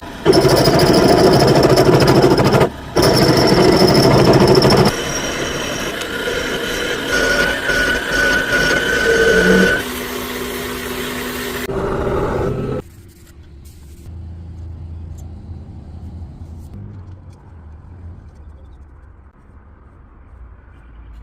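Workshop power tools running with a steady whine, switching abruptly between different tool sounds several times; much quieter after about thirteen seconds.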